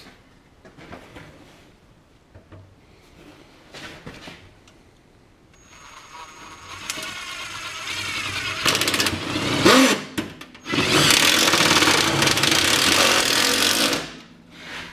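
Ryobi cordless driver running under load as it drives self-tapping screws into a car's sheet-metal inner fender. The tool starts about halfway in and builds over a few seconds, pauses briefly, then runs again louder and steadier until shortly before the end.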